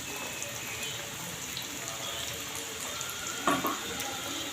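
Oil sizzling steadily as potato patties fry in a pan, with one sharp knock about three and a half seconds in.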